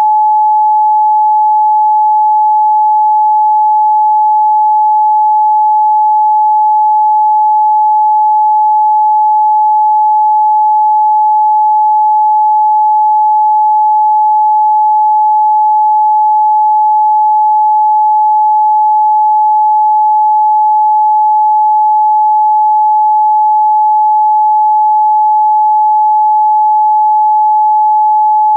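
A pure 855 Hz sine test tone held steady at one pitch and level, with no harmonics or other sound.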